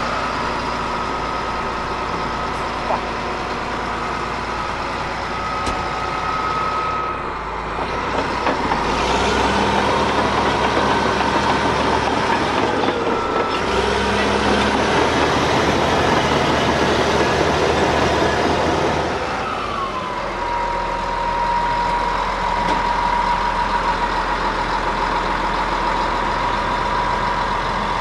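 Caterpillar D7H bulldozer's diesel engine running with a steady high whine. About eight seconds in it works harder and louder for some ten seconds, then drops back to a lower, steadier run.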